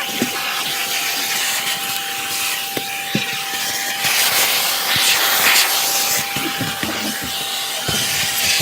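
Vacuum cleaner running steadily: a constant high whine over a rushing hiss as it sucks through the hose, with a few short knocks.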